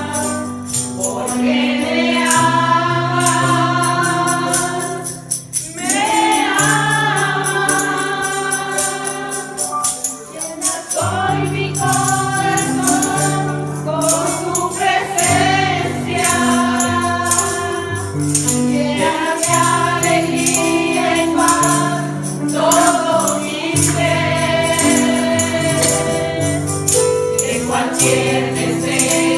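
Church praise music: a group of voices singing a worship song over a stepping bass line, with a tambourine shaking steadily throughout.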